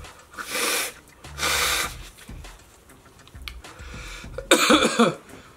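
A man blowing his nose twice into a paper tissue, his nose running from the burn of an extremely hot chili chip, then a loud pained groan about four and a half seconds in.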